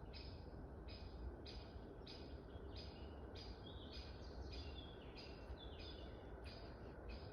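Woodland birdsong: a high, raspy note repeated evenly about twice a second, with thin whistled notes from another bird over it in the middle, above a steady low rumble.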